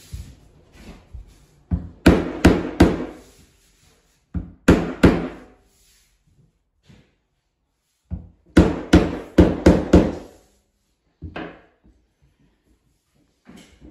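Rubber mallet tapping new plank flooring into place. It comes in quick bursts of sharp knocks with short pauses between them.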